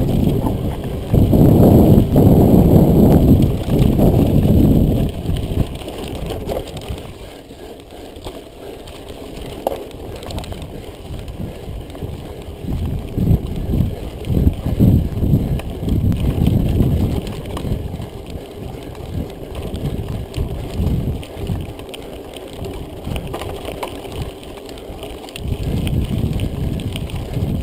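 Mountain bike riding over a rough dirt road, with tyre rumble and rattling. Wind buffets the camera microphone in uneven surges, loudest a second or so in and again near the end.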